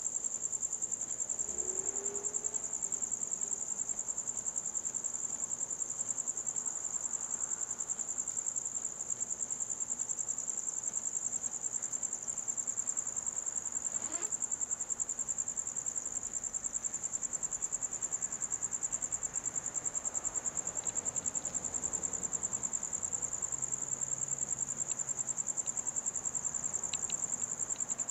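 Crickets chirping in a continuous high, rapidly pulsing trill, with one faint short sound about halfway through.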